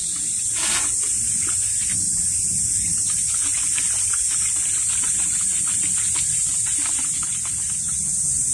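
Steady high-pitched drone of summer insects, with small clicks and taps of bottle and dishes being handled at a table.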